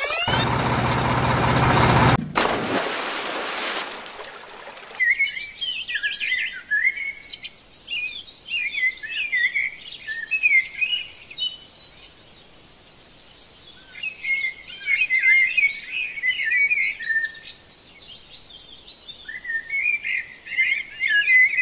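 Small birds chirping in quick twittering flurries, with a lull about halfway through. A loud rushing noise fills the first few seconds and cuts off about five seconds in.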